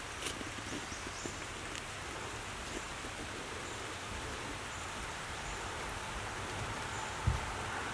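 Steady outdoor noise like a hiss, with a few faint ticks and one short dull thump near the end.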